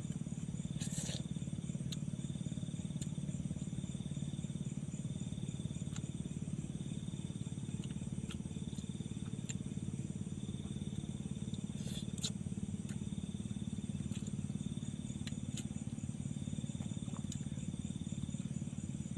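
Night-time insects chirring: a steady high-pitched tone and a fainter pulsing trill above it, over a low steady drone. A few sharp clicks come through, the loudest about a second in and two close together about twelve seconds in.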